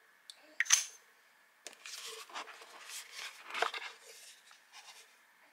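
A sharp click about a second in, then a few seconds of irregular rustling and scraping: small items and packaging being handled by hand.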